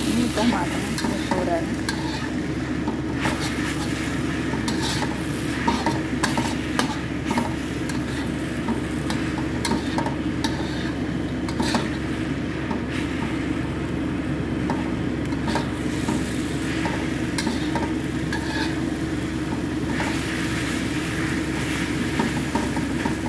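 Metal spatula scraping and clattering against a steel wok while wet noodles are stir-fried, with many short scrapes and knocks over steady sizzling. A steady low hum runs underneath.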